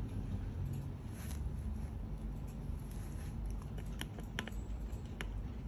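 A few sharp clicks and taps, one about a second in and a cluster around four to five seconds in, as a baby monkey mouths and grips the lid of a milk-formula tin, over a low steady rumble.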